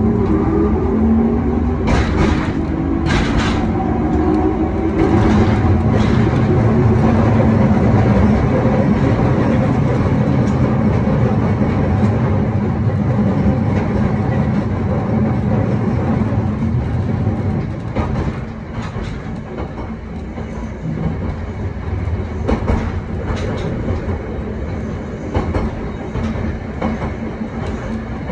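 A 1928 Kawasaki-built wooden tram with nose-suspended traction motors running on street track. The motor whine rises over the first couple of seconds, and wheels click over rail joints now and then. The running noise drops about two-thirds of the way through.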